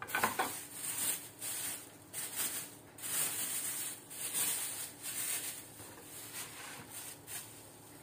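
Thin plastic bag crinkling and rustling in repeated bursts as a block of cheese is unwrapped and handled.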